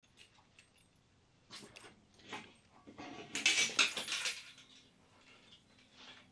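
Rustling and scraping as a person sits down in a patio chair and pulls up to a table, loudest as he settles in about halfway through.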